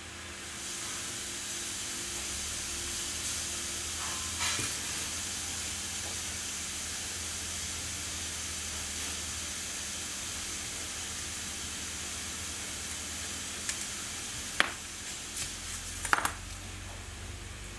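Small metal tools clicking against the brass wheels and arbors of an orrery's gearbox: a few light clicks about four seconds in, then several sharper ones near the end, over a steady high hiss.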